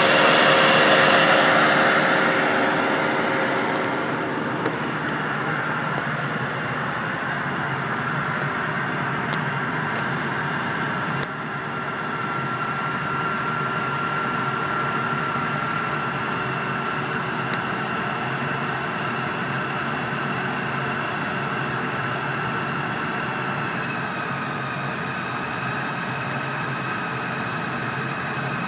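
John Deere 6430 tractor's four-cylinder diesel running steadily under heavy load, driving a PTO dynamometer through its power take-off, with the dyno's cooling fans blowing and a steady whine above the engine. It is loudest in the first few seconds, then holds steady while the measured power climbs to full output.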